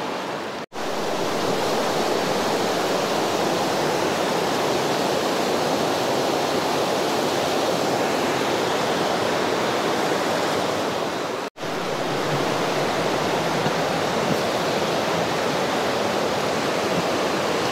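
East Lyn River rushing over rocks, a loud, steady roar of fast water. It breaks off for an instant twice, about a second in and about eleven and a half seconds in.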